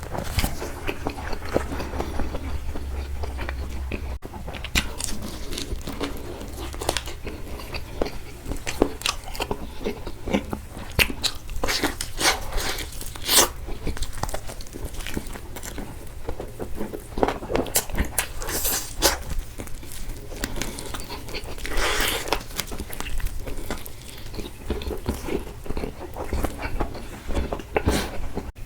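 A person eating close to the microphone, biting and chewing food with a dense run of crisp clicks and smacks.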